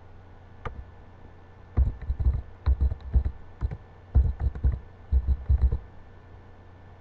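Typing on a computer keyboard: several quick runs of keystrokes from about two seconds in to nearly six seconds, after a single click near the start, over a low steady hum.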